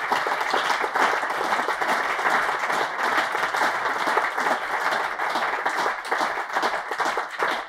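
Audience applauding, many hands clapping at once and thinning out near the end.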